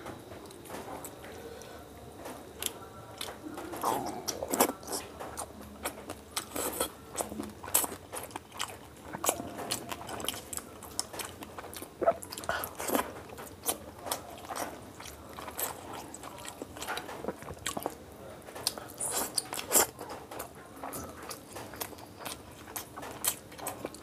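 A man eating fish curry by hand: chewing, with many irregular sharp wet clicks from the mouth.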